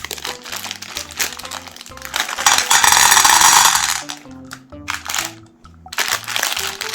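Hard-shelled M&M candies crunching and crackling as a meat grinder crushes them, over background music. About two and a half seconds in, a loud rushing noise lasts about a second and a half; then the crunching thins out before picking up again near the end.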